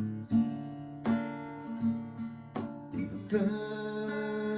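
Acoustic guitar with chords struck about once every three quarters of a second, joined about three seconds in by a singing voice holding a long note.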